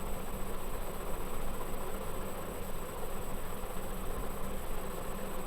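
Steady background hum and hiss with no events, unchanging throughout.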